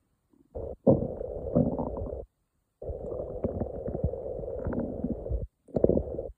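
Human stomach growling in four rumbling spells separated by short silences: a brief one, one of about a second and a half, one of about two and a half seconds, and a short one near the end.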